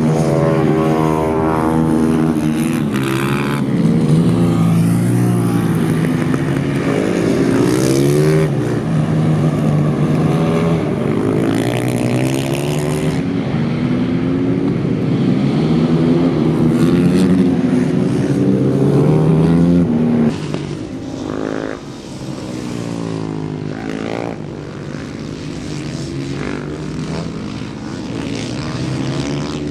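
Several supermoto race motorcycles on track, their engines rising and falling in pitch as they rev and shift, the bikes overlapping one another. About twenty seconds in the sound drops and falls back as the bikes move off.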